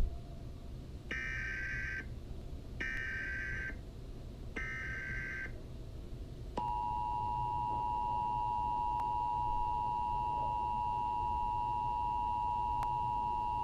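Emergency Alert System tones: three one-second bursts of warbling SAME header data tones, a second apart. About halfway through, the steady dual-tone EAS attention signal starts and holds, announcing an emergency alert.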